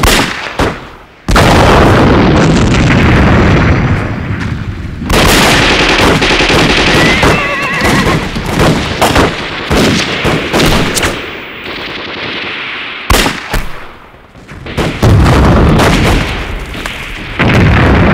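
Battle sound effects: rapid rifle and pistol gunfire with heavy explosions, loud throughout. A short high-pitched cry rises about seven seconds in.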